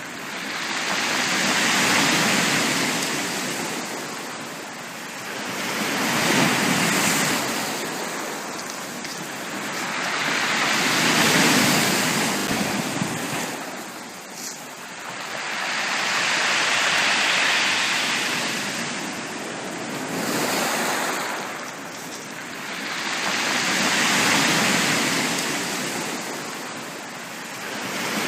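Sea waves breaking and washing up a beach, swelling and ebbing in slow surges about every five seconds.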